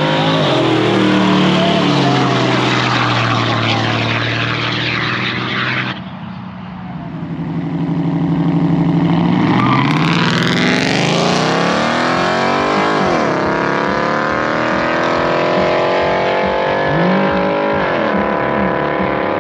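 Drag-racing cars' engines at full throttle accelerating down the strip. After a sudden brief dip, engines rev up at the starting line and launch, the pitch climbing steeply and dropping back at each gear shift.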